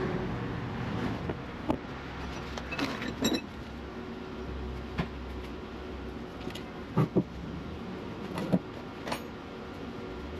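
A handful of short, sharp knocks and clicks, with a close pair about seven seconds in, over a steady low hum.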